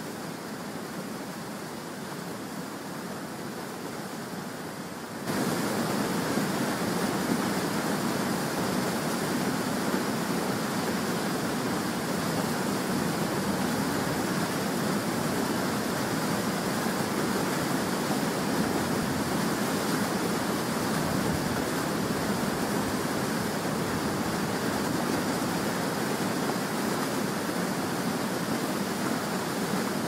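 Steady rush of a tall waterfall's falling water, stepping up suddenly louder about five seconds in.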